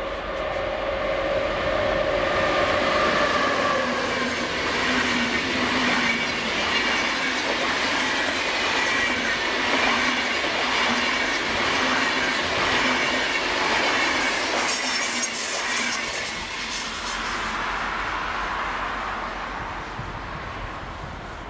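A passenger train passes close by, a DB electric locomotive hauling Swiss SBB coaches. The locomotive's whine drops in pitch as it goes by in the first few seconds, followed by a long stretch of wheel and rail noise from the coaches with a high squeal around the middle. The noise fades away near the end.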